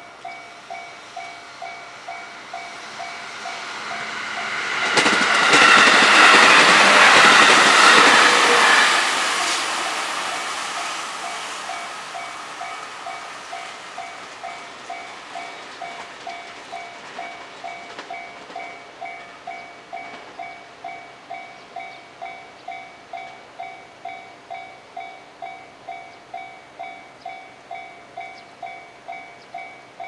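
A Japanese level-crossing warning bell ringing in steady, rapidly repeated strokes. About five seconds in, a train passes close by; its running noise comes in sharply, is the loudest sound until about nine seconds, drowning the bell, then fades away.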